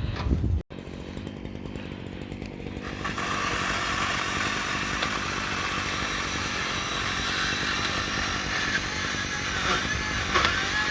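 Chainsaw running and cutting into a tree branch; it gets louder about three seconds in and then holds steady through the cut.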